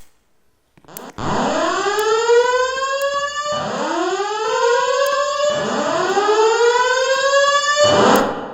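Fire alarm voice evacuation system sounding its whoop tone: three rising whoops of about two and a half seconds each, the signal to evacuate the building.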